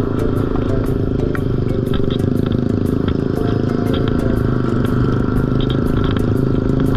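Yamaha NMAX 155 scooter's single-cylinder engine and CVT running steadily at cruising speed on the road, with a light ticking about four times a second over it.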